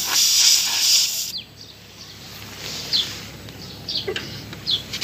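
A hiss lasting about a second and a half at the start, then small birds chirping: short, high, falling chirps roughly once a second.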